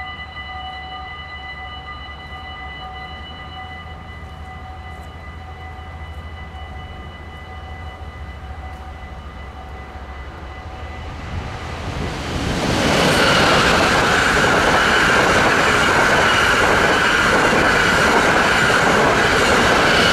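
Level-crossing warning bells ring steadily while the half-barriers come down. From about twelve seconds in, an electric passenger train rushes through the crossing at speed, much louder, and its running noise covers the bells until the end.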